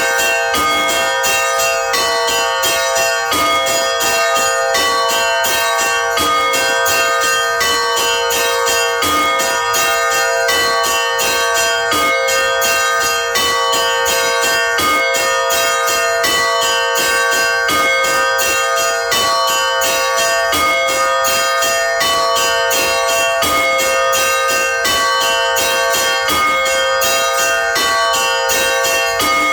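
Russian Orthodox church bells rung by hand: several bells struck in a fast, unbroken rhythmic pattern over a continuous ringing tone. It is a peal calling worshippers to a church service.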